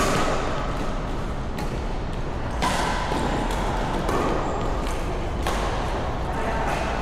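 Badminton rackets striking a shuttlecock in a rally: several sharp hits about a second and a half apart, over steady background noise.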